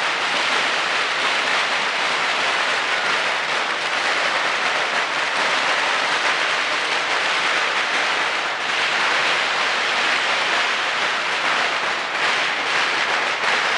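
Firecrackers crackling densely and without a break, a continuous rattle of small rapid bangs.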